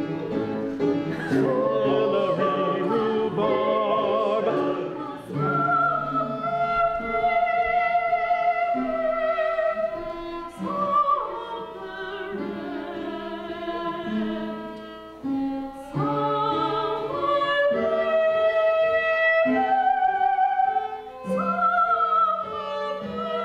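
Operatic singing with instrumental accompaniment, long held notes sung with vibrato.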